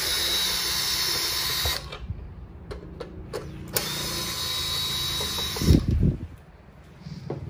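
Cordless drill driver running in two steady bursts of about two seconds each, undoing the screws of a plastic distribution board cover. A few low knocks come at the end of the second run.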